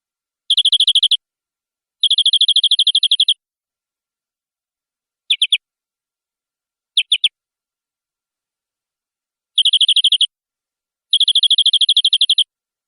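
Domestic canary singing in rapid high trills: six separate bursts of quickly repeated notes, the longest lasting over a second, with dead silence between them.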